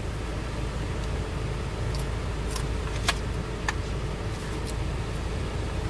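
Steady low rumble inside a car cabin, with a few short sharp clicks of a plastic fork picking at food in a takeout bowl, the loudest a little after three seconds in.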